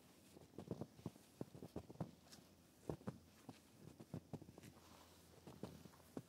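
Faint footsteps crunching through fresh snow in an irregular, unhurried walk, each step a short cluster of crackles.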